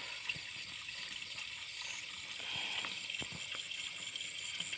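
Quiet night ambience at a swampy pond edge: a steady, high-pitched chirring, like night insects, with a few faint clicks in the second half.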